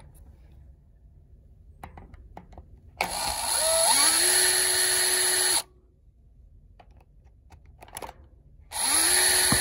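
Cordless drill driving the long screws of a Kwikset deadbolt's thumbturn assembly, in two runs of about two and a half seconds each. The motor spins up with a rising whine, holds steady, then stops. A few light handling clicks come before and between the runs, and the second run starts near the end.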